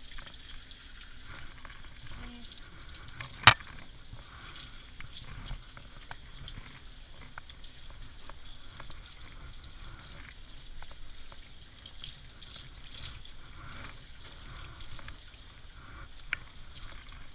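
Sudsy water spraying from a hand-held bathing nozzle onto a dog's wet coat, a steady hiss. A single sharp click about three and a half seconds in.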